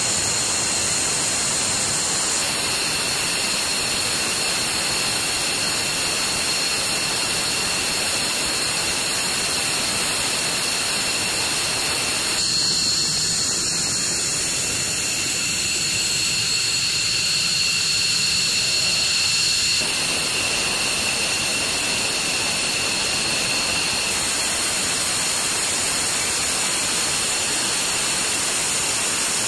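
Military jet engines running: a dense steady rushing noise with several high whining turbine tones. The mix changes abruptly a few times, as the sound switches from one aircraft to another.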